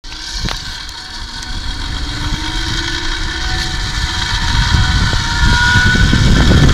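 Zipline trolley pulleys whirring along the steel cable with a rush of air, growing steadily louder as the rider picks up speed.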